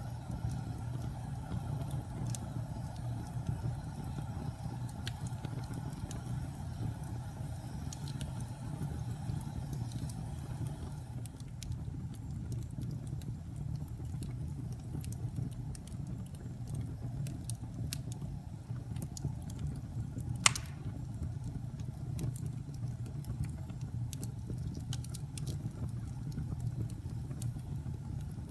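Wood fire burning with a steady low rumble and scattered small crackles, and one sharp, louder pop about three quarters of the way through.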